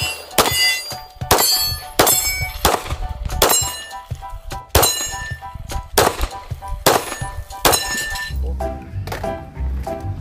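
Repeated clanks and knocks of hard objects striking each other, about one or two a second, each ringing briefly, over background music.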